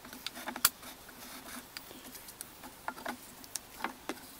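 Scraping the last of the body filler out of a metal filler tin: a sharp click about two-thirds of a second in, then scattered light scrapes and taps against the tin.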